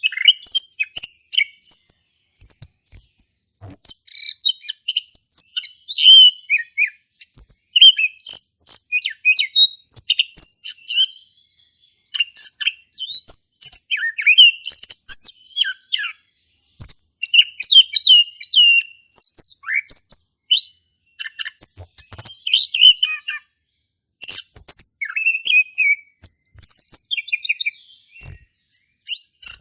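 Male chestnut-capped thrush in full song: a loud, continuous run of rapid, varied whistled and chattering phrases, high-pitched, with two short pauses, about 11 s and 24 s in.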